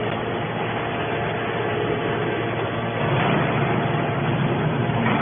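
Hydraulic aluminum-can baler running: its motor and hydraulic pump make a steady mechanical hum, growing louder about three seconds in.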